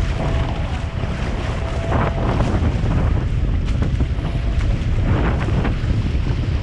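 Strong wind buffeting the microphone on a fast-sailing catamaran, over the rush of water along the hulls. The water noise swells briefly about two seconds in and again a little after five seconds.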